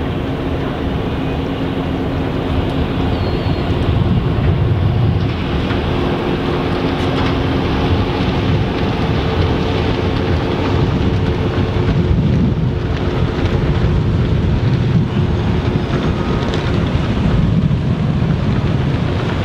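Machinery drone of the lake freighter Herbert C. Jackson passing close: a steady loud rumble with several steady hum tones, one fading out about halfway through. Wind buffets the microphone throughout.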